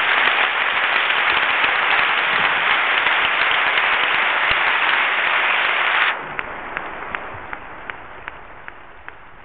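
Audience applauding, a dense steady clapping that breaks off sharply about six seconds in, leaving a few scattered claps that fade away.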